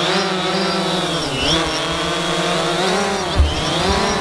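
DJI Phantom 3 quadcopter hovering close by, its propellers buzzing with a pitch that wavers up and down as it holds position and manoeuvres. A brief low thump comes near the end.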